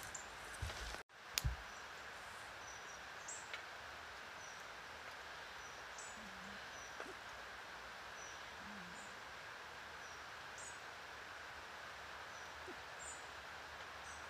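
Woodland ambience: small birds give short, high chirps every second or so over a steady background hiss. A sharp knock comes about a second and a half in, right after the sound briefly cuts out.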